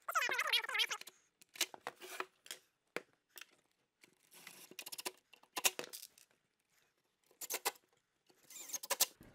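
Metal drawer slides being handled and fitted to a wooden drawer: scattered sharp clicks and knocks with short scraping passes. A short wavering whine sounds in the first second.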